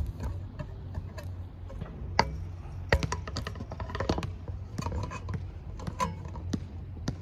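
Irregular clicks and small knocks, a few a second, from a camera mount being handled and adjusted, over a steady low hum.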